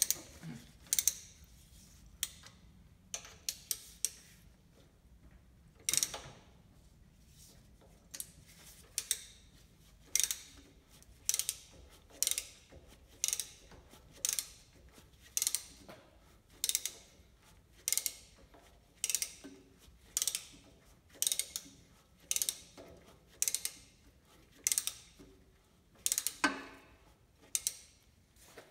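Ratchet wrench being worked in steady strokes on a Bridgeport milling machine head, giving a burst of sharp pawl clicks about once a second, as the spindle is taken out.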